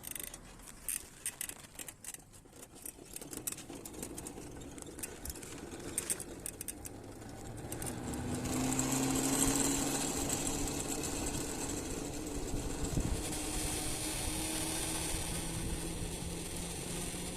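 LEM electric scooter's motor droning as it pulls away: a steady low tone that rises slightly in pitch, with wind and road noise, starting about halfway in after some scattered clicks. The drone on take-off is a fault, which the owner calls something grinding, and draining the controller has not cured it.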